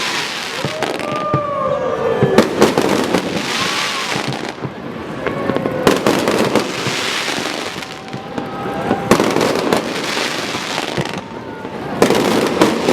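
Fireworks display: a steady run of loud bangs and crackling, hissing bursts, with a few falling whistling tones among them.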